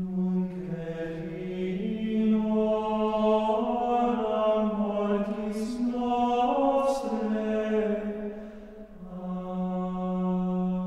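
Slow vocal chant: a single voice, or voices in unison, holding long sustained notes that step up and down in small intervals. The phrase dips briefly about eight seconds in, then settles on one long held note.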